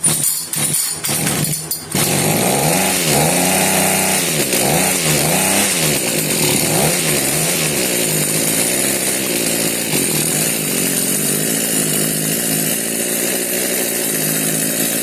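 Echo HC2020 hedge trimmer's small two-stroke engine being pull-started: a few quick cranking pulls, then it catches about two seconds in. Its revs rise and fall several times as the throttle is worked, then it runs more steadily. With its newly replaced carburetor it won't hold an idle without the trigger held.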